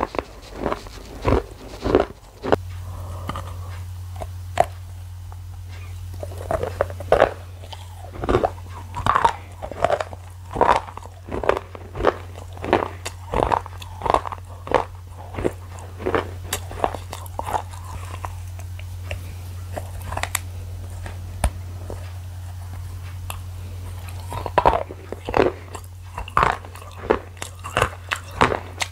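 A person chewing and biting food close to the microphone, a few sharp chewing sounds each second. A steady low hum sits underneath from a few seconds in.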